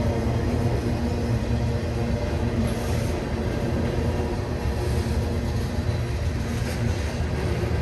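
CSX mixed freight train rolling past, a steady low rumble of wheels on rail.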